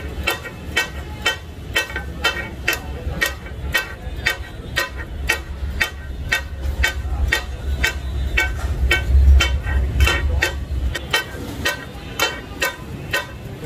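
Takatak chopping: two metal blades strike a flat iron tawa griddle in a steady rhythm, about two to three clanks a second, each with a short metallic ring, as raw kidneys and testicles are minced on it. A low steady rumble runs underneath.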